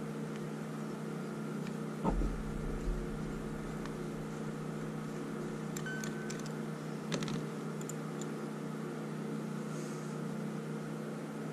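Steady low machine hum in the background, with a few small clicks and taps of a screwdriver and small metal carburetor parts being handled, once about two seconds in and a few more just past the middle.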